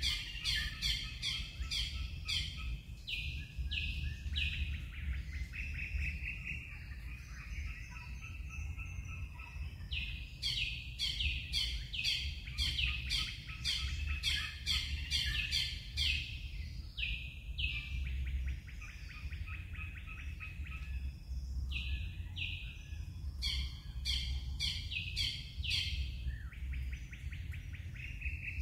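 A songbird calling in three bouts, each a quick series of short, sharply falling high notes. Under it runs a steady low rumble.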